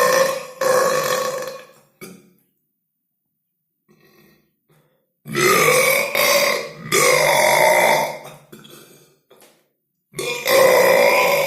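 Loud human burps: one trailing off in the first two seconds, then after a quiet gap two long belches back to back from about five seconds in, and another starting near the end.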